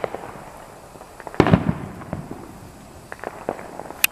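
Fireworks going off: the fading echo of a bang at the start, a loud bang about one and a half seconds in, then scattered small pops and a sharp crack near the end.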